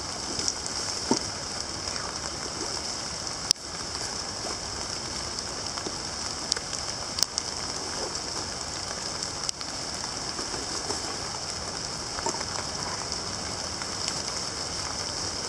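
Pouring rain falling steadily on wet leaf litter: an even hiss, with a few sharp clicks now and then.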